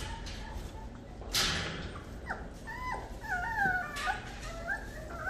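Rottweiler puppies whining and whimpering in high, wavering whines, most of them from about two seconds in, with a short noisy burst a little after one second.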